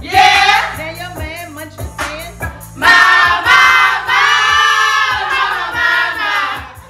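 A song with a steady beat, and a group of women singing along loudly. From about three seconds in they hold one long note that wavers, ending just before the end.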